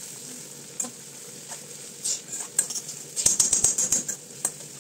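Sliced onion and fish frying in oil in a metal kadai, with a steady sizzle. A spatula stirs and scrapes against the pan, with a quick run of scraping clicks about three seconds in.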